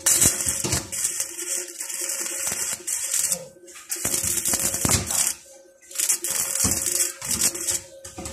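Stick (arc) welding: the electrode's arc crackling and sizzling as it runs on a metal fitting. It starts right at the beginning and drops out briefly a few times, at about three and a half, five and a half and nearly seven seconds in.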